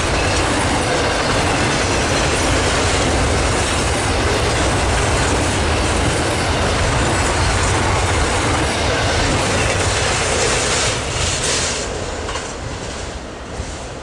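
Double-stack intermodal container train's well cars rolling past, a steady loud rumble and rattle of steel wheels on rail. About eleven seconds in, the noise drops off with a few clanks as the end of the train passes, then fades away.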